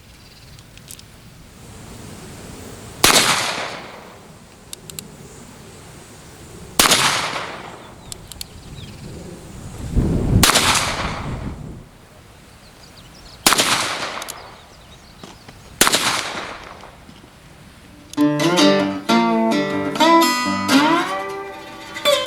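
Five shots fired one at a time from a Cimarron '62 Pocket Navy Conversion, a five-shot revolver chambered in .380 ACP, a few seconds apart, each with an echoing tail. Near the end, acoustic guitar music begins.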